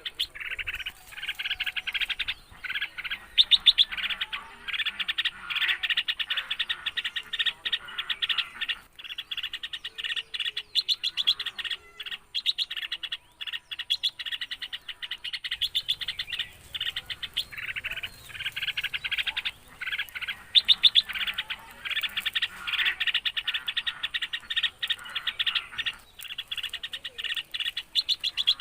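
Birds chirping in a dense, rapid chatter that runs for several seconds at a time, with short breaks about a third of the way in and again a little past halfway.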